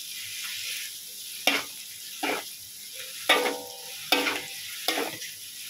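Kuey teow frying in a hot thin metal wok, a steady sizzle, while a metal spatula and spoon toss the noodles. The utensils scrape and clank against the wok every second or so, some strokes leaving the wok ringing briefly.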